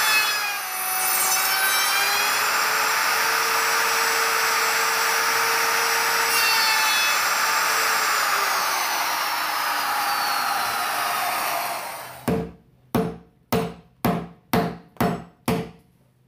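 Plunge router running and cutting into a wooden timber-frame beam to rough out a housing, its whine wavering in pitch as it bites. The router stops about twelve seconds in, followed by seven sharp mallet blows on a chisel, about two a second, paring out the housing.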